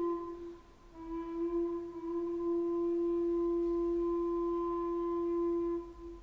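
Medieval tenor recorder solo: a note ends, then after a short breath one long, steady low note is held for about five seconds before fading in the church's echo.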